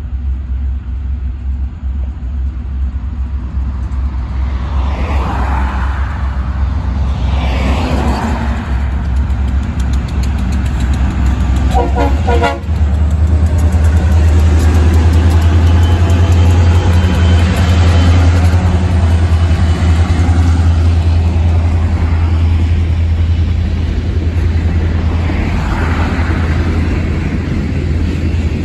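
Diesel freight locomotives approaching and passing, their engines' low rumble growing louder and loudest about 14 seconds in, with a brief horn toot about 12 seconds in. After the locomotives the covered hopper cars roll by.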